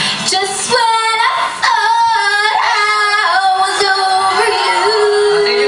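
A woman singing a short phrase, ending on one long held note.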